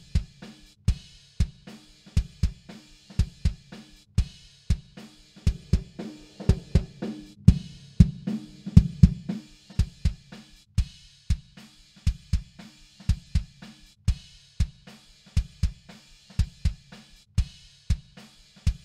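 A recorded kick drum track playing back on a loop: a steady pattern of deep single and double kick beats, with spill from the rest of the kit in the top end. Partway through, the kick turns louder and boxier as an EQ band is boosted and swept through its low mids to find the muddy region.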